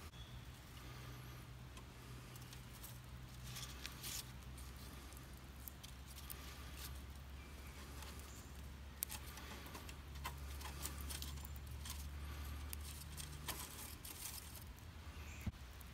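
Scattered light clicks, knocks and scrapes of split wood sticks being handled and pushed into the side feed hole of a small metal hobo stove, with one sharper click about nine seconds in. A low steady hum runs underneath.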